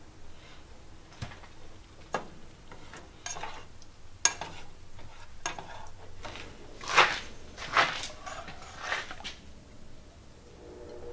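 Plastic spatula scraping and tapping in a nonstick saucepan as jarred tomato sauce is stirred: a string of short scrapes and knocks, the loudest two about seven and eight seconds in.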